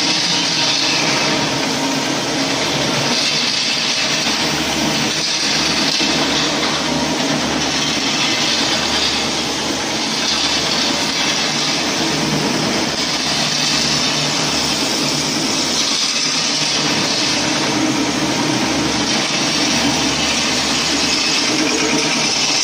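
Electric terrazzo floor grinding machine running steadily, its abrasive stones grinding a wet terrazzo floor: a low motor hum under a loud, even grinding hiss.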